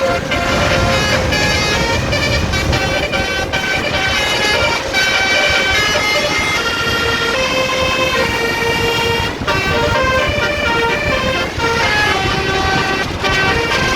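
A tour bus's Cortas 12 telolet basuri multi-trumpet air horn playing a tune in held notes that step from pitch to pitch, with brief breaks between phrases, over a low rumble.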